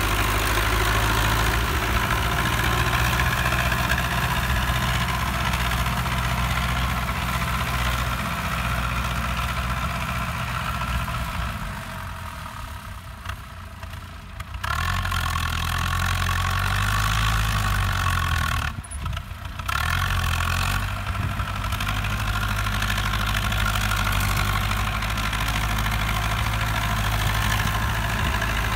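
Belarus MTZ-820 tractor's four-cylinder diesel engine running steadily under load as the tractor works through wet mud. The sound drops quieter twice, for about two seconds near the middle and briefly again a few seconds later.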